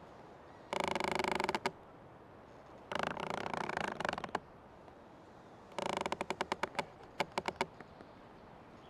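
Old tree creaking: three drawn-out creaks about a second apart, the last breaking up into a run of separate clicks that spread out toward its end.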